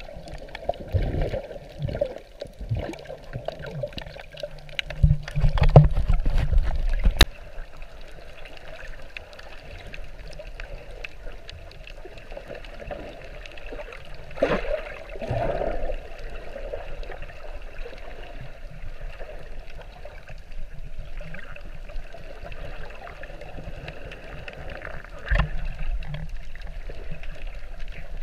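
Underwater sound picked up by a GoPro in its waterproof housing while snorkeling: muffled water noise with bubbling and irregular low thumps. The loudest stretch is a low rumble about five to seven seconds in, which ends in a sharp click.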